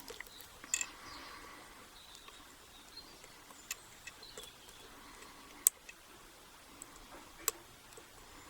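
Lock pick and tension tool working inside the keyway of a Master Lock 140 pin-tumbler padlock: faint scraping with a few sharp clicks several seconds apart.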